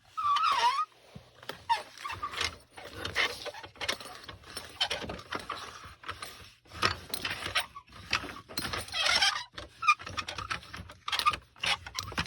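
Pulley being pulled over and over for foley: a run of rattling scrapes, about one a second, some with a short squeak from the wheel.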